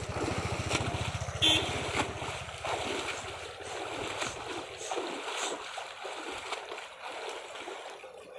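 Swimmer splashing and churning in canal water: a splash as he comes up from under the surface, then arms thrashing the water, with one sharp splash about a second and a half in. A low, fast throbbing rumble runs underneath for the first four seconds or so, then fades.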